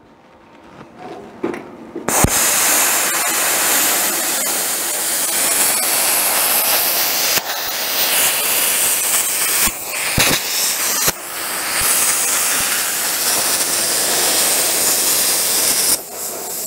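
Plasma cutter cutting through rusted sheet steel: a loud, even hiss that starts about two seconds in, breaks off briefly a few times as the torch is moved and restarted, and stops shortly before the end.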